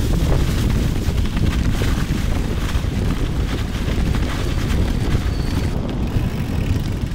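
Wind buffeting the microphone of a camera on a moving bicycle, with rumble and scattered clicks from the tyres rolling over packed snow and ice.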